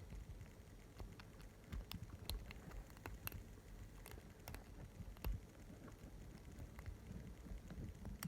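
Faint, irregular small metal clicks and scrapes of a lock pick and tension wrench working the pins inside a lock, with the lock not yet open.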